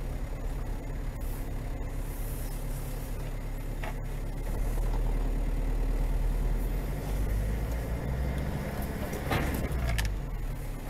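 Steady low engine and road drone heard from inside a car. Near the end, a crash as a sedan and an SUV collide just ahead: two sharp hits about half a second apart.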